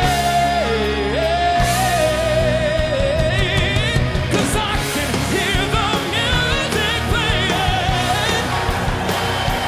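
Live rock band playing a passage of a melodic rock song without sung words: a held lead melody that bends in pitch over the band, breaking into quicker wavering notes after about four seconds.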